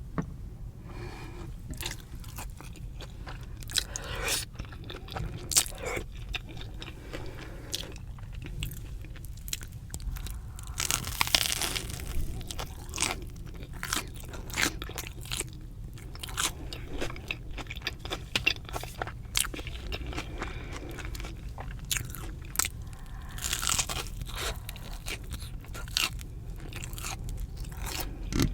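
Close-miked biting, crunching and chewing of a crisp, fried Korean cheese dog: a continuous run of small crackles, with louder crunchy bites about a third of the way in and again later, over a steady low hum.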